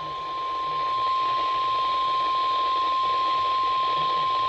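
NOAA Weather Radio's 1050 Hz warning alarm tone: a single steady high tone held unbroken over radio static. It marks the start of a severe thunderstorm warning broadcast.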